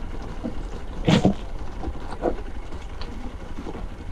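Hero Xpulse 200's single-cylinder engine running at low speed, with knocks and rattles from the bike going over loose stones; the loudest knock comes about a second in.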